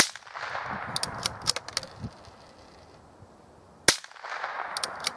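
Two rifle shots from a scoped Savage rifle fired from a bench, about four seconds apart. Each shot is followed by a rolling echo and a few sharp clicks.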